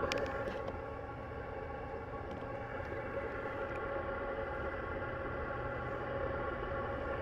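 PLANAR (Autoterm) diesel air heater running steadily, its combustion blower giving an even hum with several steady tones over a low rumble.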